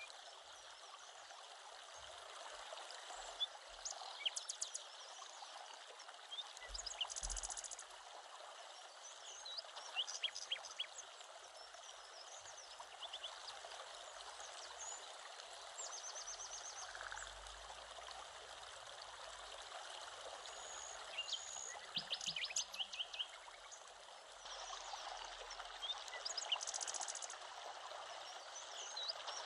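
Steady rush of a flowing stream, with birds chirping over it in short calls and a few rapid high trills.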